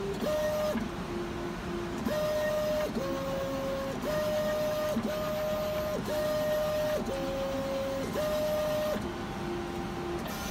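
Motors of an automated pizza-topping machine whining as it moves the pizza and lays pepperoni slices on it: a run of steady pitched tones, each under a second long, about one a second, stepping between a few pitches over a steady machine hum.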